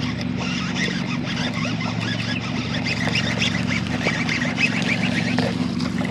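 A dense chorus of many short, duck-like animal calls, over a steady low hum.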